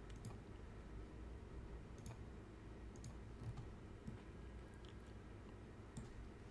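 Faint, scattered clicks of a computer mouse over a low room hum.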